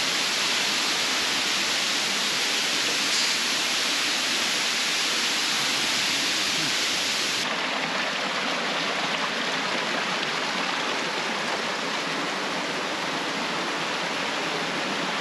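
Rushing water of a river and its small waterfalls: a steady hiss that becomes slightly quieter and duller about halfway through.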